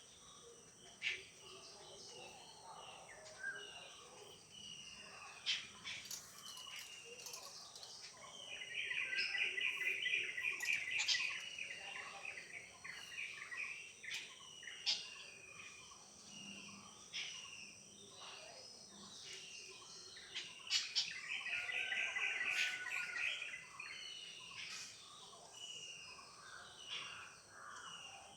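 Birds calling and chirping, with two bouts of rapid trilling chatter of about three seconds each, over a faint steady high insect drone.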